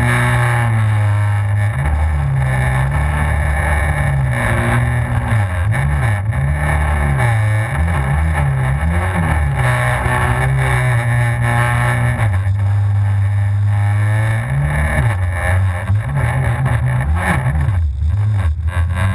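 Yamaha FZS jet ski's supercharged four-stroke engine running hard, its pitch rising and falling again and again as the throttle and load change, with a steady stretch near the middle, over water and wind noise.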